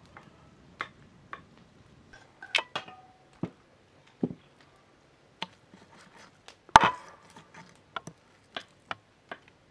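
Meat cleaver chopping raw chicken breast on a wooden block: a run of irregular sharp knocks, the loudest about two-thirds of the way through.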